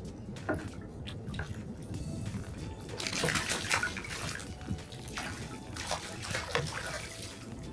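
Choppy sea water slapping and splashing against a kayak's hull, in irregular splashes that grow louder about three seconds in.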